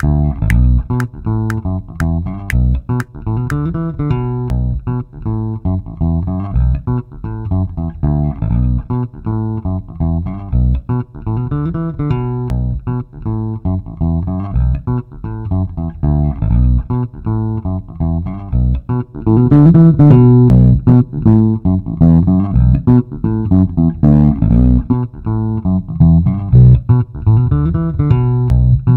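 A 120 bpm funk electric bass guitar loop playing in a steady run of plucked notes. About two-thirds of the way through it gets louder and fuller in the low end, as its low-mid EQ band is boosted.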